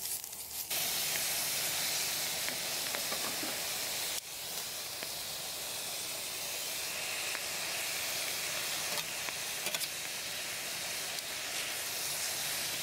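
Pork and cabbage sizzling in a steel frying pan while yakisoba noodles are added, with a few light clicks of metal tongs. The sizzle gets louder less than a second in.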